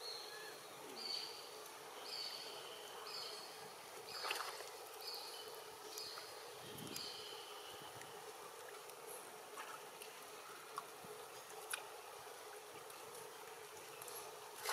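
Faint water lapping and splashing from macaques swimming in a pond, with a small splash about four seconds in. A short high note repeats about once a second through the first half.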